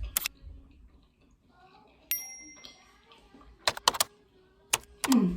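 Close-miked eating: a few sharp crunches and mouth clicks, with one bright ringing ding about two seconds in that dies away over a second. A short falling voice sound comes near the end.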